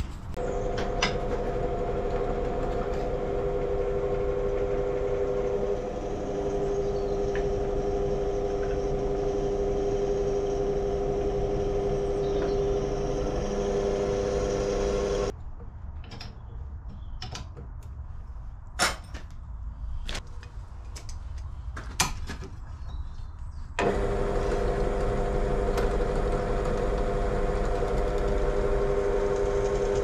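An engine running with a steady, even drone. About halfway through, the drone drops away abruptly for about eight seconds, leaving a quieter stretch with a few sharp knocks, then comes back unchanged.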